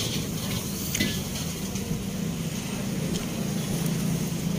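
Steady low hum with a faint hiss of roadside background noise, with a light click at the start and another about a second in.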